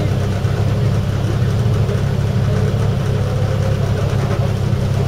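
Competition car's engine idling steadily, heard from inside the cabin as a low, even hum.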